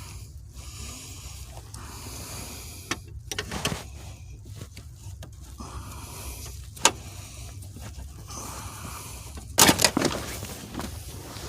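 Scattered sharp clicks and knocks of metal shifter parts and hand tools being worked, the loudest a quick cluster near the end, over a low steady hum.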